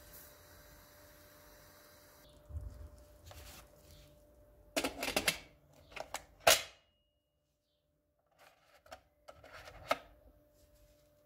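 Kitchen handling noises: a scattered series of clicks, knocks and clatters in a few clusters, the loudest about two-thirds of the way in, over a low steady hum that is plain for the first couple of seconds.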